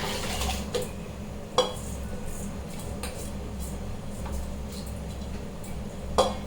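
Metal pots and utensils clinking and knocking, with a loud knock about one and a half seconds in and another near the end, over a steady low hum.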